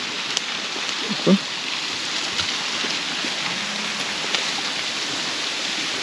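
Steady rush of water from a small waterfall.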